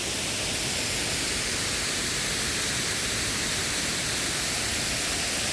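Steady rush of a waterfall pouring from a dam, a constant, even hiss.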